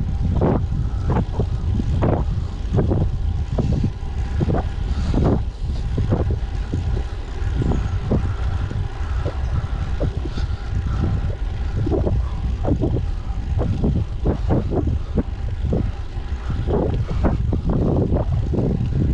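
Wind buffeting the microphone of a road bike's camera on a fast descent: a steady low rush broken by irregular gusts.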